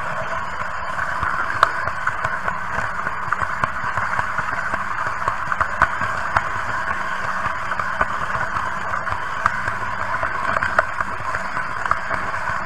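Märklin H0 model train running along its track: a steady whirr of the small motor and wheels, with scattered sharp clicks from the track.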